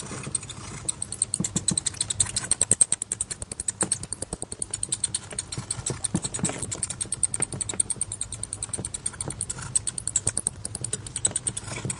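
Bat giving a rapid train of sharp, high-pitched clicks, about ten a second, with some clicks louder than others.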